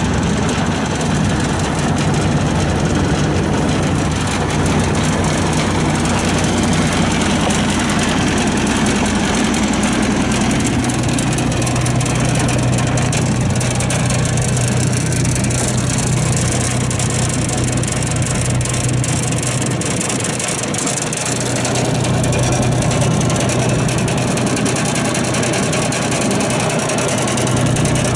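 2011 John Deere 27D mini excavator's three-cylinder diesel engine running steadily; its note drops a little in pitch about ten seconds in.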